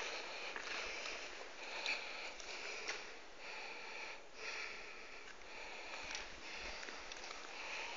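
A person breathing in and out through the nose close to the microphone, about once a second, with faint footsteps on a gritty concrete floor.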